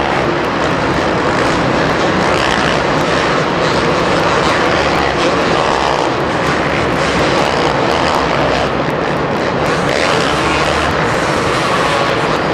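Two-stroke motocross bikes revving hard around a supercross track: a loud, unbroken engine din that swells and fades as bikes pass.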